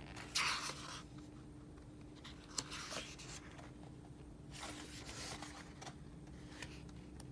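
Pages of a K-pop album photobook being turned and handled: three brief paper swishes with a few light taps and clicks between them.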